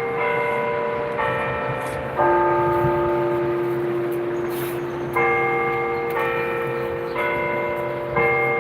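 Church tower bells chiming a melody: struck notes of different pitches about a second apart, each phrase ending on a held, ringing note, with a pause of about three seconds before the next four-note phrase.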